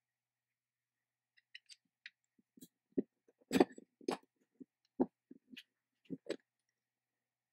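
Small metal parts clicking and knocking as a spring-loaded threaded adjuster with a knurled steel knob is fitted into a metal bracket and hex bolts are handled on a wooden bench. After a quiet first second or so come light clicks and a few heavier knocks.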